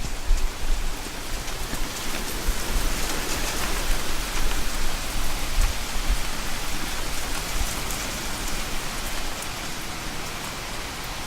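Steady rain falling and pattering on a surface, a dense even hiss with fine drop ticks and a low rumble underneath.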